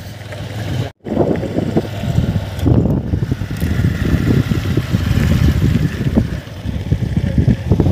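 Motorcycle riding on a rough dirt road: engine running under heavy wind buffeting on the microphone. The sound cuts out briefly about a second in.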